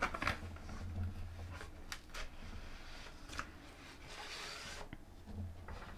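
Stiff cardboard packaging and plastic wrap rustling and scraping as the layers are pulled apart by hand, with a few sharp crinkles and a longer sliding rasp about four seconds in.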